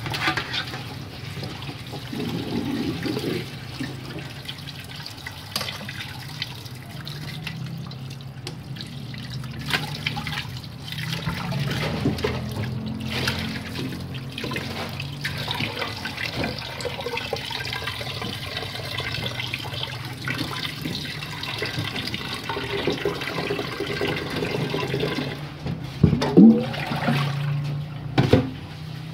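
Water running and sloshing in a stainless steel stockpot in a sink as raw pork is washed by hand. A few sharp knocks near the end as the pot is handled.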